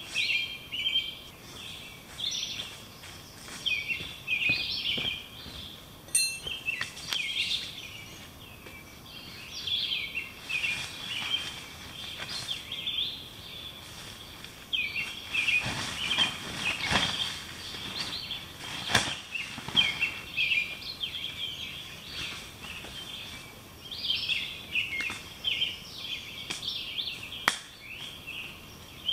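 Songbirds chirping and singing continuously in the woods. Midway through, fabric rustling from a hammock tarp being handled, with a couple of sharp clicks.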